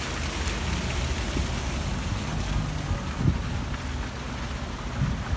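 Wind buffeting the microphone as a low, uneven rumble over a steady outdoor hiss, with one brief thump about three seconds in.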